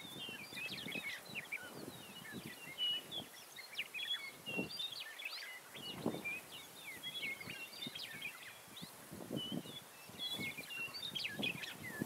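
Birds chirping and twittering in a busy chorus of short, high notes that never pause, with brief low sounds now and then underneath.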